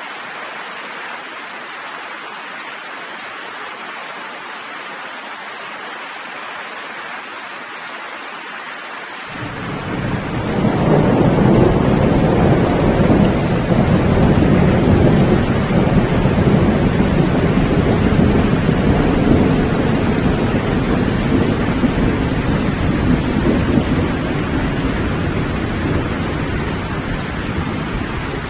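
Steady rain, joined about nine seconds in by a long, low rumble of thunder that swells over a second or two, stays loud for many seconds and slowly dies away near the end.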